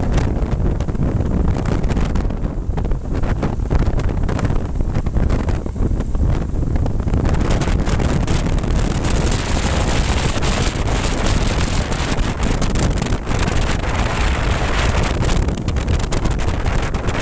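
Wind rushing and buffeting over the microphone of a motorcycle-mounted camera at road speed, with the BMW R1200GS Adventure's flat-twin engine running underneath. The noise stays loud and steady throughout.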